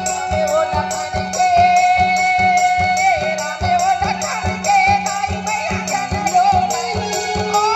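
Live Chhattisgarhi folk music: a held, wavering melody line over a steady beat of drum strokes and jingling percussion, about two to three strokes a second.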